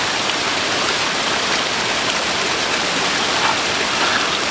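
Steady rush of running water from a spring-fed stream.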